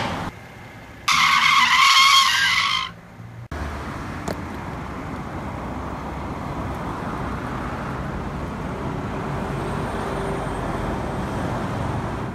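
Car tyres screeching for about two seconds, then a car's steady driving noise that cuts off suddenly at the end.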